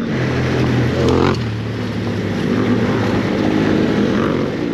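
Motorcycle engine running steadily, with a slight change in its note about a second in.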